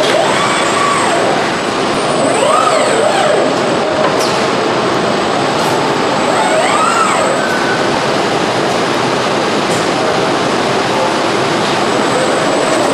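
Steady machinery noise of an automated assembly line, with industrial robot arm servo motors whining as they rise and fall in pitch. The whines come twice, a couple of seconds in and again around the middle.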